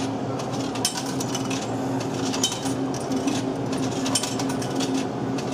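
A vending machine humming steadily, with scattered sharp clicks and clinks about once a second.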